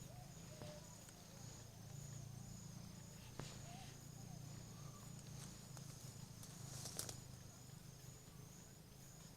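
Quiet outdoor ambience: a faint steady low hum, a faint high-pitched tone pulsing about twice a second, scattered small clicks, and a brief rustle about seven seconds in.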